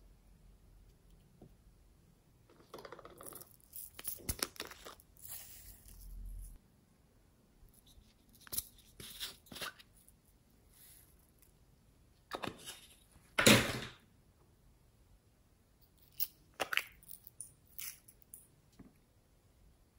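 Small plastic containers handled close up: lids clicking off, and glitter and foam beads shaken and tapped out onto slime. The sound comes in scattered short rustles and clicks, loudest about two-thirds of the way in.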